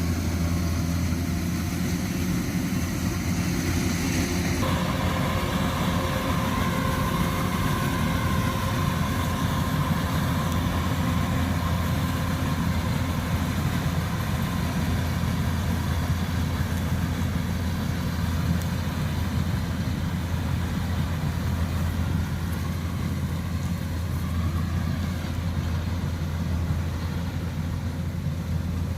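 Kubota DC-105X rice combine harvester's diesel engine running steadily with a deep hum and machinery whine; the whine changes pitch about five seconds in.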